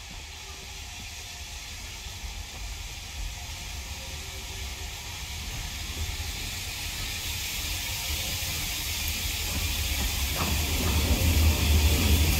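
Steam locomotive 257 Squadron, a Bulleid Battle of Britain class Pacific, approaching slowly with a steady hiss of steam over a low rumble of wheels on rail. Both grow steadily louder as it draws near and are loudest near the end.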